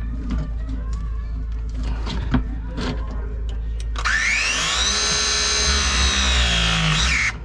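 Milwaukee battery-powered pipe press tool running a press cycle on a fitting: about four seconds in, its motor starts with a quickly rising whine that levels off and holds for about three seconds, then cuts off abruptly near the end. Before that, small clicks and knocks as the tool is handled.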